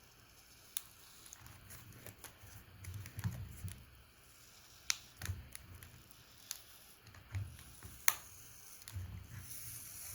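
Faint, scattered clicks and small scrapes as a plastic credit card is worked under a device battery to pry it off its adhesive, with soft handling bumps. Sharper clicks come about a second in, twice near the middle, and once more near the end.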